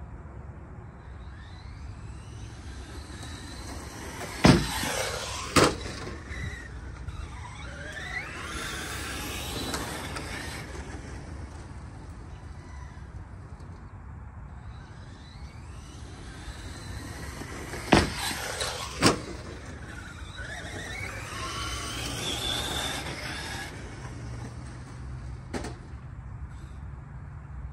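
Arrma Mojave 4S RC short-course truck's brushless electric motor whining up and down in pitch as it makes two runs at a wooden ramp. Each run brings two sharp knocks about a second apart, the truck hitting the ramp and landing the jump.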